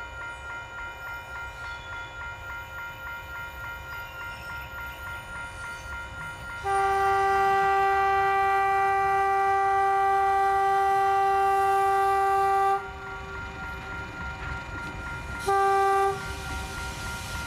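Tasrail diesel locomotive 2145 approaching with its engine running, sounding its horn: one long blast of about six seconds, then a short blast a few seconds later.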